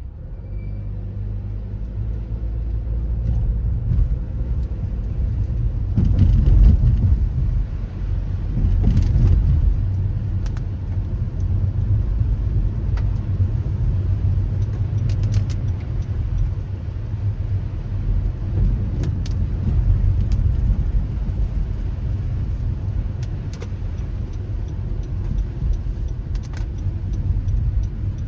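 Car driving on wet city streets in the rain: a steady low rumble of engine and tyre noise that builds over the first few seconds, with a few scattered sharp ticks.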